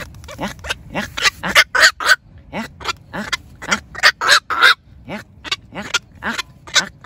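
Black-crowned night heron calling in a rapid series of short calls, about three a second, some louder than others.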